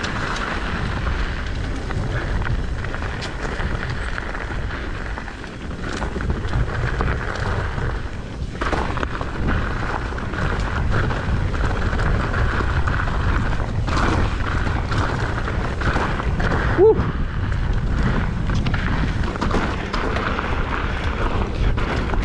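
Mountain bike descending a rough, rutted dirt trail: wind buffeting the microphone and tyres rumbling over the ground, with scattered rattles and knocks from the bike over bumps. A short squeal stands out about three-quarters of the way through.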